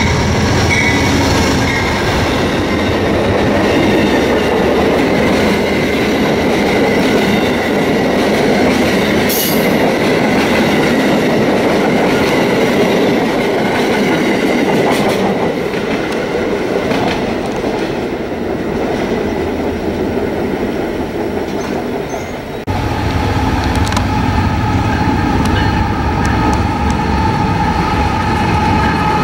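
Amtrak passenger train passing close by: the diesel locomotive, then the coaches' wheels rolling and clicking over the rail joints. About three-quarters of the way through the sound cuts to a CSX freight led by GE diesel locomotives, with a heavy engine rumble under a steady high tone.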